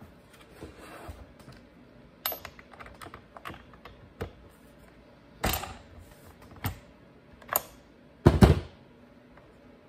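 Scattered clicks and metallic knocks of a plug wrench and spark plug being handled while the spark plug is unscrewed from an Echo SRM-225 trimmer's two-stroke engine. The loudest is a double knock near the end.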